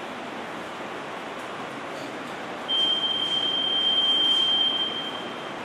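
Electronic voting machine control unit giving one long, steady beep that starts about halfway through and lasts nearly three seconds, over a constant background hiss.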